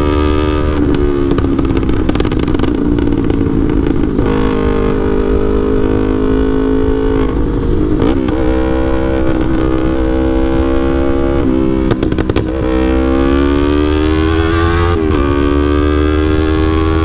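Yamaha R3 parallel-twin motorcycle with a full aftermarket exhaust and remapped engine, ridden and running under load. The engine note climbs through the revs and drops at each gear change, about four times, with a brief lift in the loudness around twelve seconds in.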